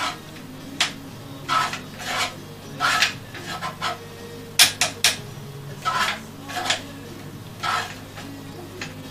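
Short, irregular hand strokes of a small file or scraper on a part of a handmade music-box mechanism, about a dozen rasping strokes with brief pauses between them.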